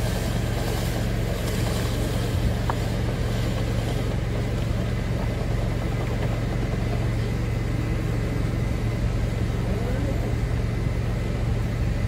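Steady low machine hum with rushing air as compressed air is driven through a dryer vent duct, blowing lint out of the wall vent hood.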